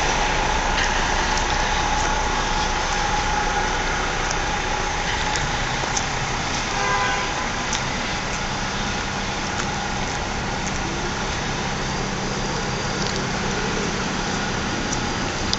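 Street traffic from a queue of cars idling and creeping forward in a lane beside the kerb: a steady hum of engines and tyres, with a few small clicks.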